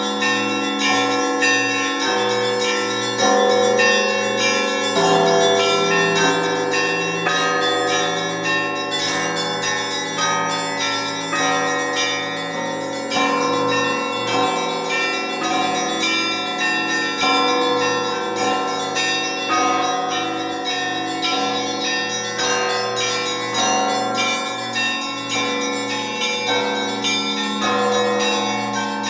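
A set of Russian church bells rung in the Orthodox zvon style, in a pattern in seven-four time. Quick strokes on the small bells ring over the sustained hum of the larger bells, and the low tones change about five seconds in.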